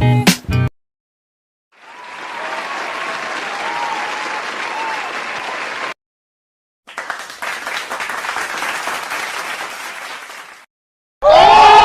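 Two separate short applause clips, each about four seconds long with a clean silence between them; the first fades in and carries faint cheering voices. Near the end a loud crowd cheer with shouting voices cuts in.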